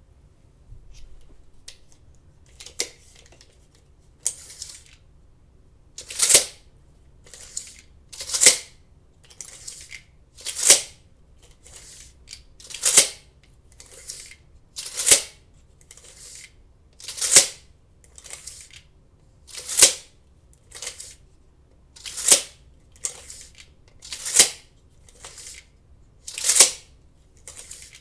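Retractable steel tape measure, its blade run out and back over and over. Each stroke is a softer rasp followed by a louder zip, about every two seconds, with a few light clicks at the start.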